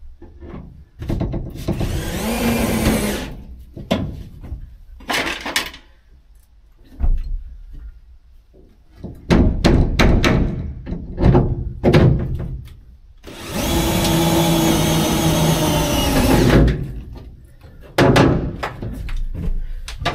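Cordless drill-driver running self-tapping screws through a plywood panel into the van's sheet-metal wall, in two runs of a few seconds each: one about a second in, a longer one about 13 seconds in. Knocks and clicks from handling the panel fall between them.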